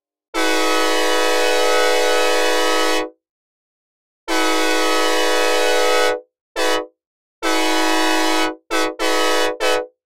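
Synthesized recreation of a Nathan Airchime K5LA five-chime locomotive air horn, dry with no reverb, sounded in a series of blasts: two long ones, a short toot, another long one, then a quick run of short ones near the end. Each blast is a full, many-noted chord that cuts off cleanly.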